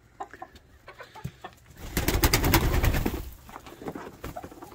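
Hens clucking softly while they peck at feed. About two seconds in comes a loud rustling burst lasting about a second.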